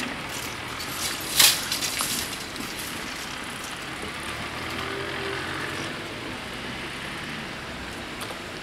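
Road traffic crossing an open railway level crossing: steady tyre and engine noise, with one loud, sharp clatter about a second and a half in and a few smaller rattles just after it.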